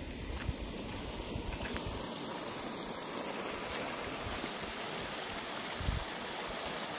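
Water running steadily out of a tilapia pond being drained, a continuous even rush. A short low thump about six seconds in.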